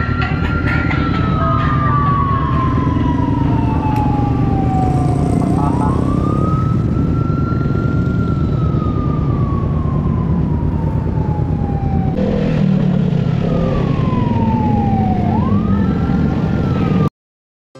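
A wailing siren sweeps up quickly and falls slowly, about three times, over the steady rumble of motorcycle engines and wind noise while riding. It cuts off suddenly near the end.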